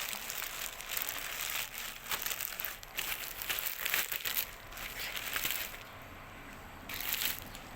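Parcel packaging crinkling and rustling as it is handled and opened, in irregular bursts. It eases off about six seconds in, then comes one more short burst near the end.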